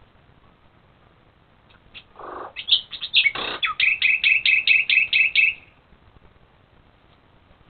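Animal calls: a short, low, buzzy call about two seconds in, then a rapid run of repeated high chirping notes, about four a second, for about three seconds before it stops.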